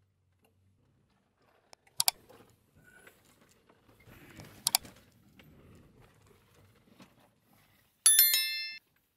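A few sharp clicks, then a short bell-like metallic ring of several high tones that cuts off suddenly.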